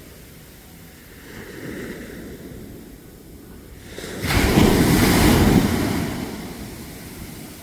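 Sea waves breaking on the shore. A small wave washes in about a second and a half in, then a bigger one crashes suddenly about four seconds in and its rush fades away over the next two seconds.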